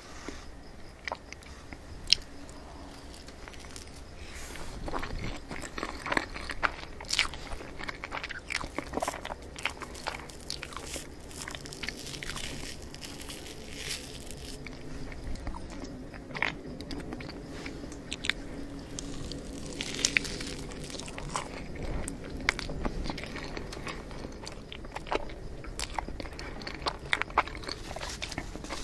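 Close-miked eating of tiramisu crêpe cake: a metal fork cutting through the soft layers, then wet chewing and mouth smacks, with scattered sharp clicks, one of them loud about two seconds in.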